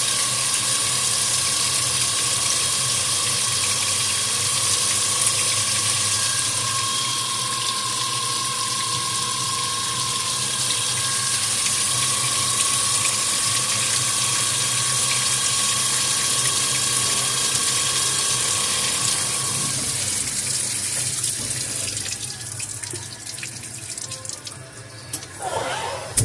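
Flood coolant spraying and splashing inside a CNC milling machine while it cuts lifter bores in an aluminium cylinder head, over a steady high whine from the spindle. The noise fades away over the last several seconds.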